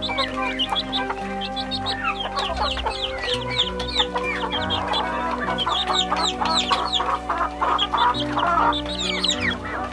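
A brood of chicks peeping: many short, high peeps, each falling in pitch, overlapping one another the whole time. Background music plays underneath.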